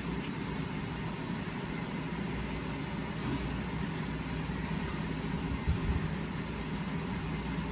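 Steady low mechanical hum, even throughout, with a faint thump a little before six seconds in.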